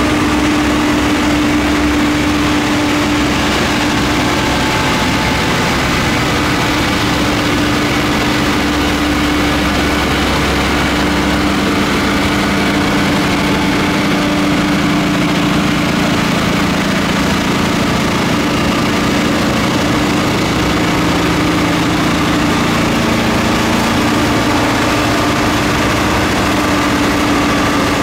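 Diesel work locomotives and a track snow-thrower car running past at low speed, their engines giving a steady drone with a constant held tone, the thrower blasting snow off the rails. A second, lower engine tone joins about halfway through.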